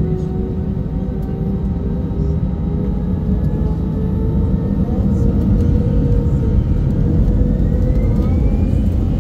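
Airbus A320's jet engines heard from inside the cabin during the takeoff roll: a loud, steady rumble with whining tones that slowly rise in pitch as thrust builds, getting louder about halfway through.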